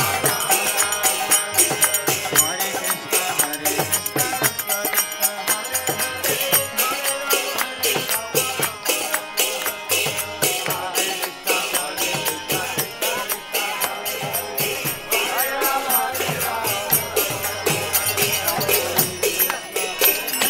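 Live kirtan: a group chanting to harmonium and mridanga drum, with karatalas hand cymbals clashing in a quick, steady beat.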